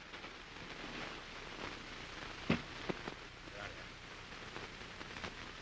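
Steady hiss and crackle of an early optical film soundtrack, with a few sharp clicks scattered through it.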